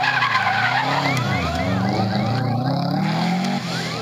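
Rally course car, a blue Subaru Impreza, passing close with its engine revving up and down. Its warning siren sounds over the engine in quick rising sweeps and fades out about two and a half seconds in.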